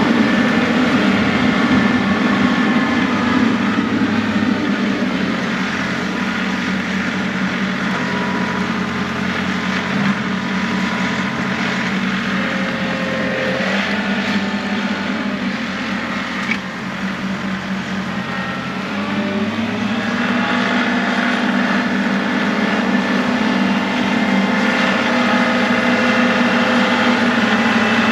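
John Deere 2038R compact tractor's three-cylinder diesel engine running steadily under plowing work, dropping somewhat in level past the middle and picking up again about two-thirds of the way through.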